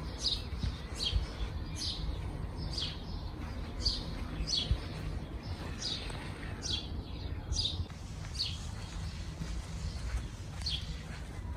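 Bird chirping outdoors: short, high notes, each falling in pitch, about one a second with a couple of brief pauses, over a steady low rumble.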